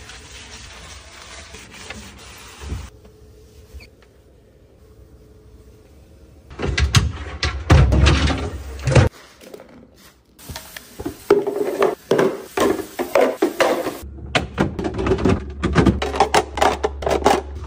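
Refrigerator parts being cleaned and refitted: a sponge scrubbing over a glass shelf at first, then clear plastic drawers and bins knocking, sliding and clattering into place, with many quick clicks and knocks toward the end.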